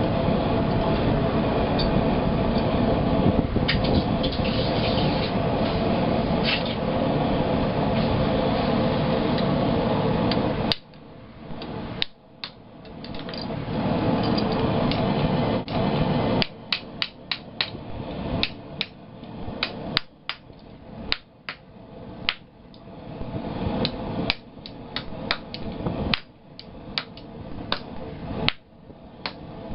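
A steady rushing noise cuts off about eleven seconds in and briefly returns. From about sixteen seconds on, a hand-forged blacksmith's hammer strikes hot half-inch round steel bar on an anvil, sharp blows about two a second, forging a right-angle bend.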